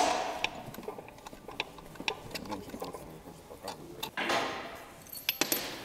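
Metal-on-metal clanks and light clicks from hands and a small hand tool working over the bare crankshaft of a G4KE 2.4 petrol engine block. A loud ringing clank comes at the start and another about four seconds in, with quick light ticks between them.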